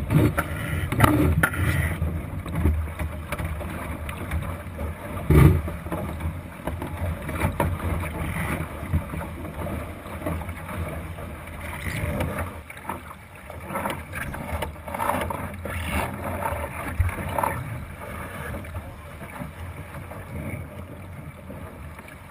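Water rushing and splashing along a Thistle sailing dinghy's hull as it sails, with wind on the microphone and scattered knocks from the boat. A loud thump comes about five seconds in, and the water noise grows quieter in the second half.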